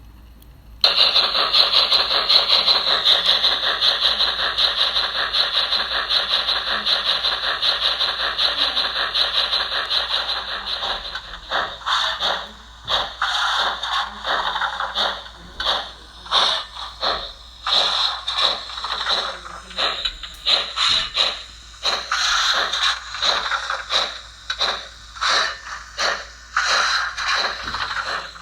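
Model train sound decoder playing locomotive engine sounds through small iPhone 6 speakers. It starts suddenly about a second in with a steady noisy sound for about ten seconds, then turns into a rhythmic pulsing at about one beat a second.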